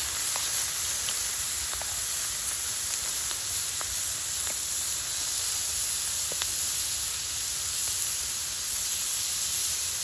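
Food frying in a hot pan: a steady sizzle with scattered small pops and crackles.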